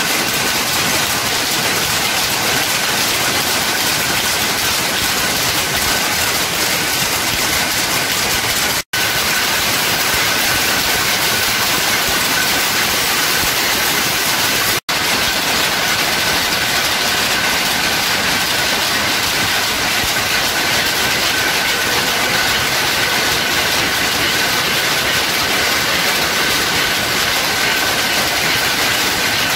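Many power looms running together in a weaving shed: a loud, dense, unbroken mechanical clatter with a steady high whine through it. It cuts out for an instant twice.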